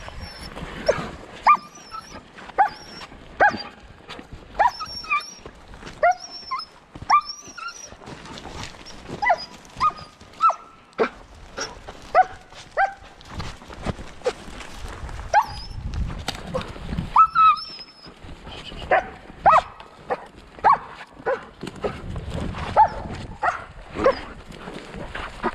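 Tracking dog on a leash barking repeatedly in short, high-pitched barks, about one or two a second.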